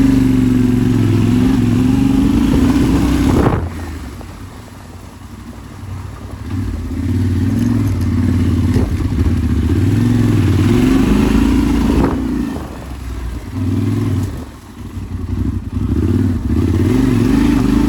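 Yamaha Ténéré 700's parallel-twin engine riding off-road, its revs rising and falling with the throttle. It eases off about four seconds in and twice more near the end, with a couple of sharp knocks from the bike.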